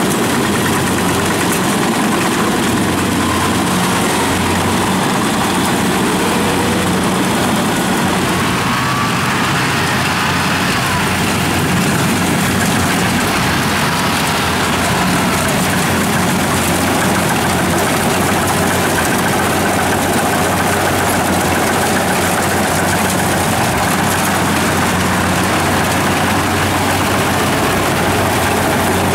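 Kubota DC-70 rice combine harvester working under load as it cuts and threshes ripe rice: its diesel engine hums steadily beneath the noise of the cutting and threshing machinery.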